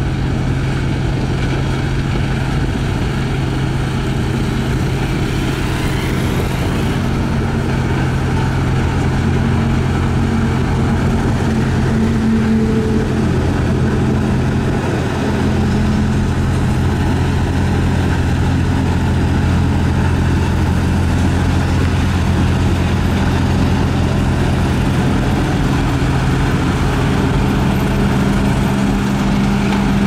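Diesel engines of two single-drum road rollers, a HAMM 3410 and a Sakai, running steadily while compacting a gravel road base: a loud, even low hum, with a higher tone that comes and goes.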